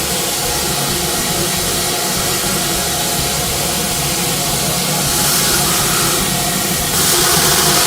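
High-pressure drain-cleaning washer running: a steady motor drone under a loud hiss of water jetting, stepping up in loudness about five seconds in and again near the end.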